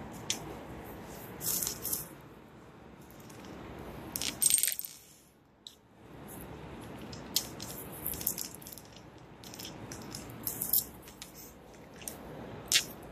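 A marble clicking and rattling on a hard stone countertop as a pet conure pushes it about, in irregular clusters of sharp clicks, the loudest about four and a half seconds in.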